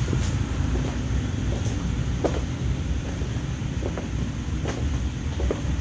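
Steady low background rumble with a few faint clicks scattered through it.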